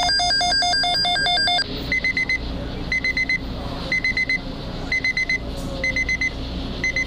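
Electronic emergency alert tones: a rapid alternating pattern of several high pitches for about the first second and a half, then groups of four quick high beeps repeating about once a second.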